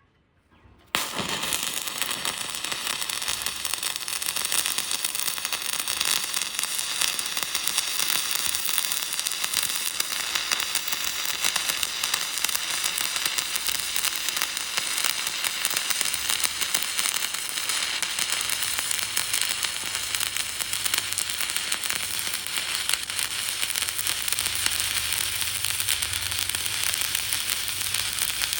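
Electric welding arc crackling and sizzling steadily, struck about a second in and held without a break.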